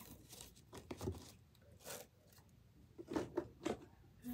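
Plastic fidget toys, pop tubes among them, being picked up and moved by hand: faint, irregular light clatters and scrapes, bunched near the start and again near the end.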